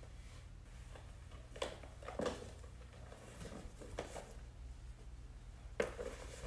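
Two small handbags, a Telfar small shopping bag and a Brandon Blackwood mini tote, being handled as they are lifted off the shoulders: straps and bag bodies rustle and bump. There are a few sharper knocks and taps, the strongest about a second and a half, two seconds and six seconds in, over a low steady hum.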